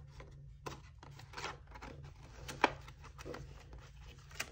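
Paper banknotes and a clear plastic binder envelope rustling as cash is slid into the pocket, with scattered light clicks, one sharp click a little past halfway and another near the end.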